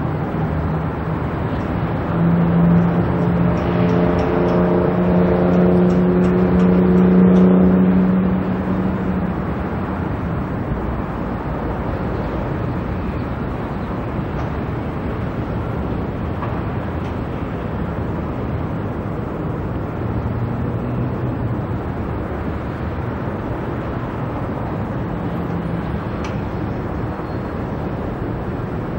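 Steady rumble of electric suburban trains and city traffic. A low, steady hum swells about two seconds in and fades away by about nine seconds, as a train passes.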